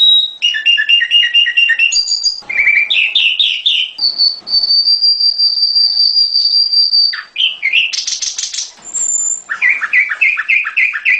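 Recorded song of a prenjak gunung, a mountain prinia, played as a lure: loud, high, rapid series of repeated chirps, broken by one long steady whistle lasting about three seconds and a short buzzy burst.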